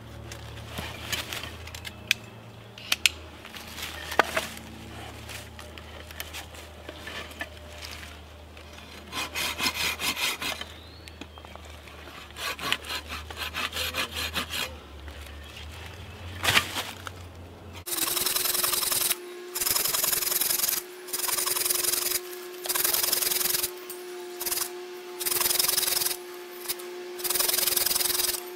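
A hand-held folding saw cutting a notch into a sapling pole. It starts with short, light, irregular strokes and a few clicks; about two-thirds of the way in, it goes to steady, louder back-and-forth strokes about one a second.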